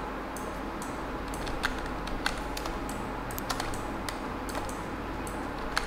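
Sparse, irregular clicks of a computer keyboard and mouse, a few keystrokes at uneven intervals over a steady low hum.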